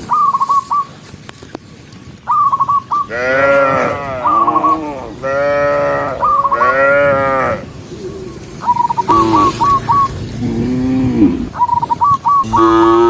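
A herd of cattle mooing: several long moos that rise and fall in pitch, some overlapping, with short high calls repeating between them.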